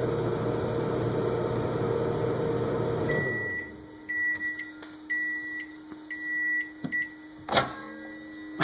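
Microwave oven running with a steady hum that stops about three seconds in as the timer ends, followed by a series of high end-of-cycle beeps. A sharp knock comes near the end.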